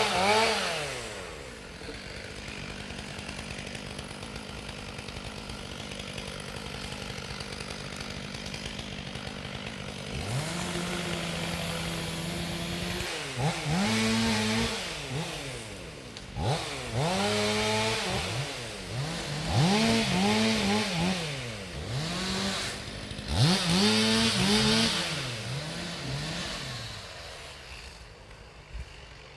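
Chainsaw running at a steady speed, then revved up and down repeatedly in a string of short bursts before it dies away near the end.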